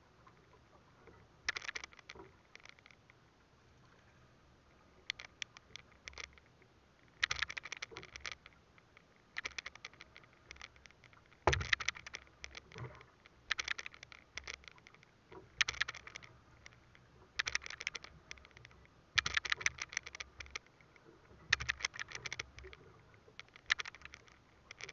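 A freshly caught small tuna drumming its tail against the boat's floor: bursts of rapid tapping about a second long, repeating every couple of seconds.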